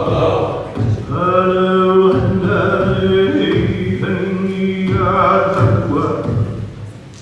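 Male voices chanting a Hawaiian hula mele, sustaining long held notes.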